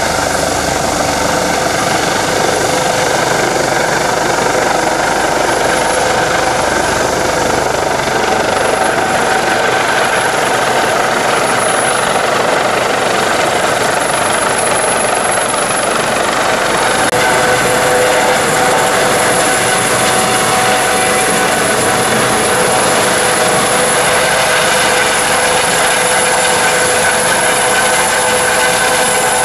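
Airbus (Eurocopter) AS365 Dauphin twin-turbine helicopter flying low overhead and hovering. The sound is a steady rotor and turbine noise with a high, continuous whine over it.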